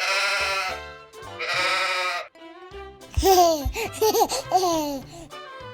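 Sheep bleating: two wavering bleats in the first two seconds, then a run of louder bleats with sliding pitch from about three seconds in. Light background music plays underneath.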